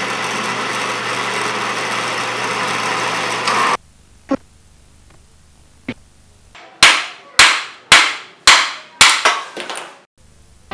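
Milling machine end mill cutting steel: a steady whirring hiss that cuts off abruptly after about four seconds. From about seven seconds in, a run of about six sharp edited hit effects, each with a falling tail, coming faster toward the end.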